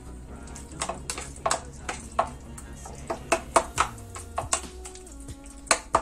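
Metal spoon stirring ground beef and tomato sauce in a plastic bowl, with irregular sharp clicks and taps as it knocks against the bowl, over background music.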